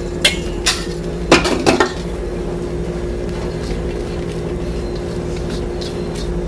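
A spatula scraping and knocking a few times against a stainless steel mixing bowl in the first two seconds while beaten eggs are folded into melted chocolate, then a steady low hum.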